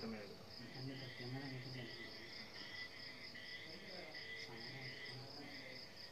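Insects chirping: a steady, fast-pulsing high trill, with a slower, lower chirping beneath it.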